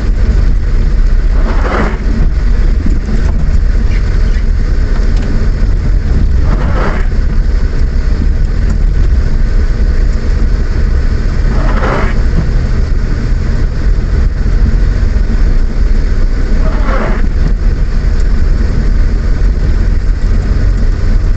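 A car driving in the rain, heard from inside the cabin: a steady low rumble of engine and tyres on the wet road with an even hiss of water. A short swish comes about every five seconds.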